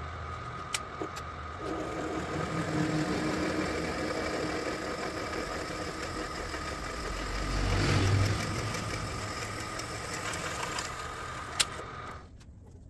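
A vertical milling machine's spindle motor runs with a steady whine and a louder surge about 8 seconds in. There is a sharp click shortly before the machine is switched off and winds down near the end.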